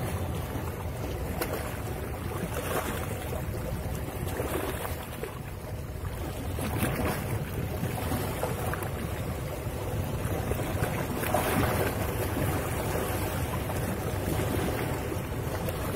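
Wind rumbling on the microphone, with the wash of sea surf behind it.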